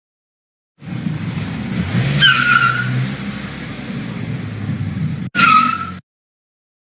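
Cartoon car sound effect: a car driving off with a tire screech about two seconds in, then a short separate skid sound near the end.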